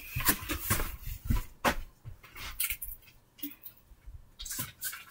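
Footsteps and clothing rustle of a person walking off across a carpeted floor: a run of irregular soft knocks and rustles, thinning out after about two seconds.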